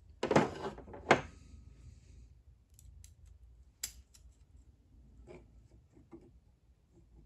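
Steel tools and piston rings handled on a workbench: two loud clatters in the first second, then a sharp click near four seconds in and a few light clicks as piston-ring expander pliers are worked on a ring.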